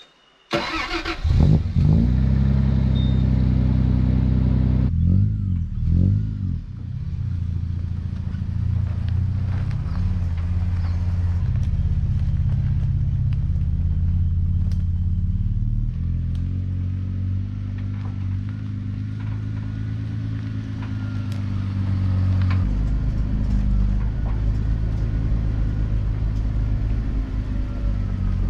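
Toyota 80 Series LandCruiser engine running as the vehicle drives. It comes in suddenly about half a second in, and the engine note rises and falls with the revs several times.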